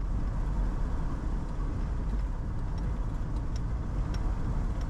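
Steady road and engine noise heard inside a moving car's cabin, with a few faint ticks about halfway through.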